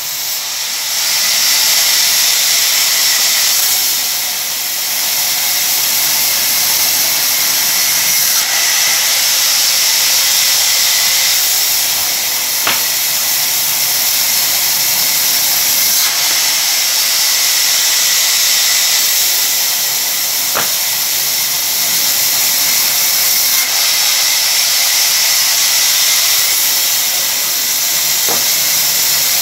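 Vertical band saw running and cutting mango wood beams: a steady high hiss of the blade through the timber, dipping briefly about four seconds in, with a few faint clicks.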